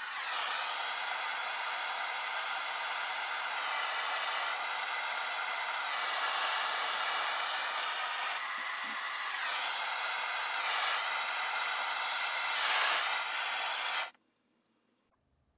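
Propane torch flame burning with a steady hiss, heating a soldered rifle sight base to melt off the excess solder. It cuts off abruptly about a second and a half before the end.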